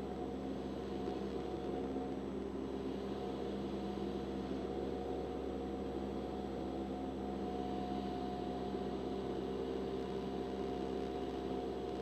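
Cessna 172's piston engine and propeller running steadily in flight, heard inside the cabin as a constant drone of several tones over a rushing hiss.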